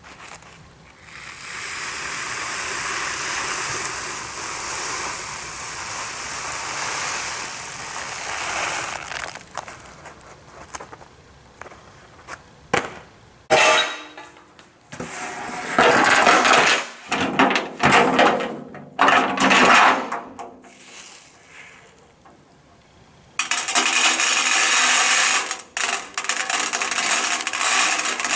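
Tiny aquarium gravel substrate rattling and trickling: a long steady rush, then a series of short loud bursts of rattling, then a loud steady rush again near the end.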